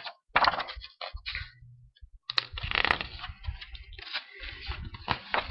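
Paper rustling and crackling in irregular bursts as the pages of a booklet are leafed through and handled.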